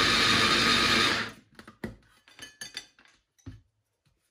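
Electric mini food chopper running steadily as it chops a small load of vegetables, its motor cutting off about a second in. Light clicks and knocks follow as the plastic motor top is lifted off the bowl.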